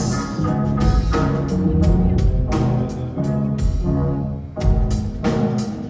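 A live band plays an instrumental stretch of the song with no vocals: regular drum hits over a low bass line and held pitched notes.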